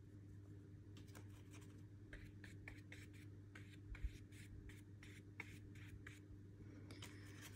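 Faint taps and scratchy strokes of a watercolour brush working paint on paper, over a low steady hum, with a soft bump about four seconds in.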